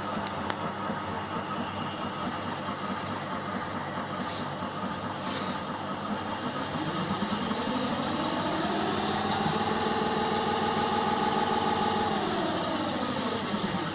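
Indesit washing machine on its spin cycle: the drum motor whine rises about halfway through, holds steady, then falls away near the end. The drum has plates fitted to shave down the edge of the rubber door seal, which rubs and squeaks against the drum.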